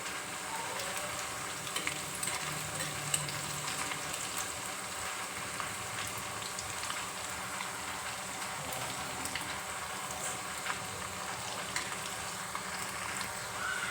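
Chopped garlic and carom seeds frying in hot mustard oil in a pan: a steady sizzling hiss with scattered small crackles and pops.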